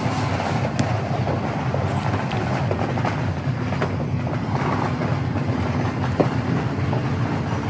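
Distant fireworks: a steady, dense rumble of far-off explosions with scattered pops and crackles on top, one sharper crack about a second in.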